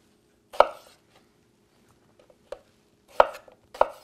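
Chef's knife slicing through a nectarine and knocking on a wooden cutting board. Three sharp knocks come about half a second in and twice near the end, with a faint tap in between.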